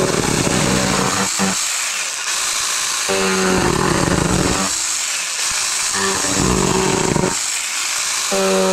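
Cordless battery mini chainsaw cutting cardboard in several passes. A steady motor whine sounds when the chain runs free and gives way to coarse tearing noise as the chain bites into the cardboard. The free-running whine comes back about three seconds in, again around six seconds, and near the end.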